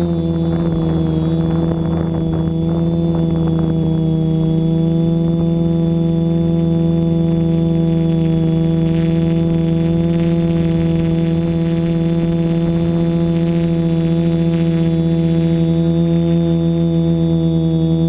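DJI F450 quadcopter's electric motors and propellers whirring at a steady pitch, heard up close from the camera on the drone's frame.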